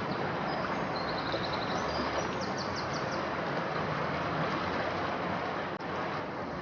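Swollen River Wey floodwater rushing past in a steady, even noise. A small bird twitters briefly in quick high chirps about one to two and a half seconds in.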